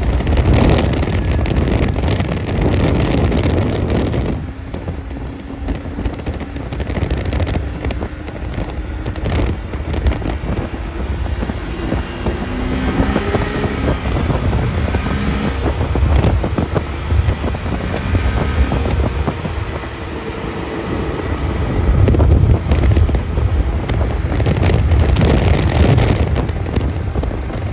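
Snowmobile running along a trail, its engine pitch rising and falling as it speeds up and slows, under heavy wind buffeting on the microphone.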